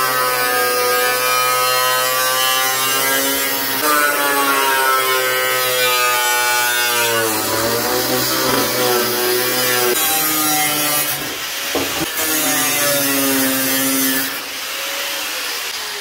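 Angle grinder with a cut-off wheel cutting through a steel truck bumper: a steady motor whine whose pitch dips and recovers as the wheel bites into the metal. The grinder eases off about two seconds before the end.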